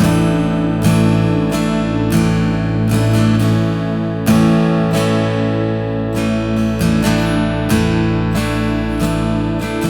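Instrumental worship music led by strummed acoustic guitar: sustained chords struck every second or so, with no singing.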